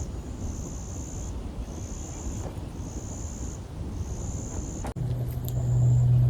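An insect calling in a steady rhythm, a high buzz about once a second, over a low outdoor rumble. About five seconds in the sound breaks off abruptly and a loud, steady low hum comes in, with the insect buzz still faintly behind it.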